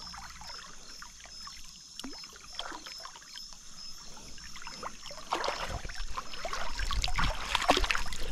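Shallow river water splashing and dripping as fish are picked out of a gill net, the splashing getting louder and busier about five seconds in.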